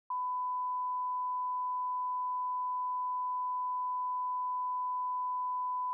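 A steady electronic beep at one unchanging pitch, a pure test or reference tone that starts with a slight click just after dead silence and holds evenly throughout.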